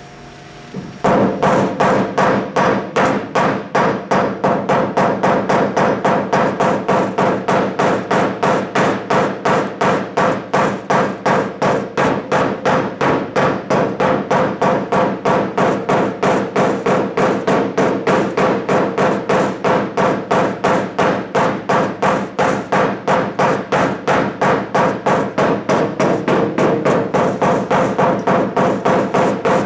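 A paintless dent repair hammer taps steadily on the sheet-metal bed side of a 2005 Chevy Silverado, starting about a second in. It lands about three quick taps a second, and the panel rings under each blow. The taps are knocking down the raised crown around a deep dent to release the panel's pressure.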